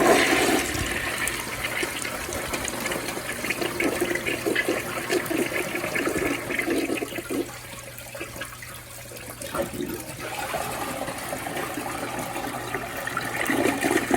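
1962 Eljer Ellis toilet flushing a load of nine paper towels. The water rushes in loudly at the start, eases off for a couple of seconds as the towels partly block the bowl, then keeps draining as the clog clears itself.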